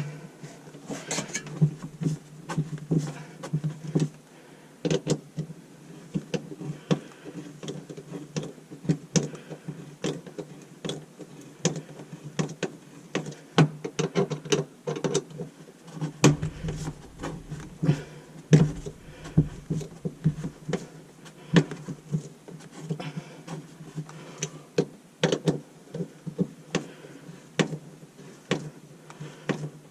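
Irregular clicks, taps and knocks of sink drain and garbage disposal parts and tools being handled and fitted together, with a low hum under them.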